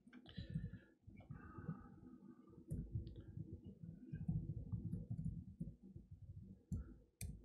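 Faint, scattered clicks of typing and clicking on a laptop at the lectern, over a steady low room rumble picked up by the microphone.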